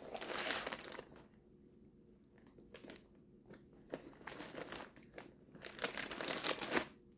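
Plastic bag crinkling and rustling as it is handled, in irregular bursts: a spell of rustling at the start, a quieter lull, then more crinkling in the last few seconds.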